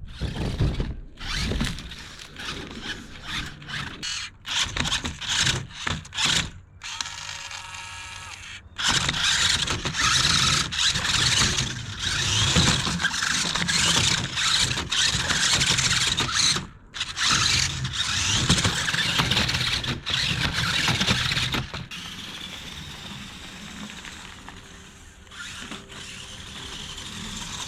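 Toy RC monster truck's electric motor and gearbox whirring and whining, with repeated knocks and clatter as it drives and bumps around. A stretch of sharp knocks, then a brief pitched whine, then a long noisy run that eases off near the end.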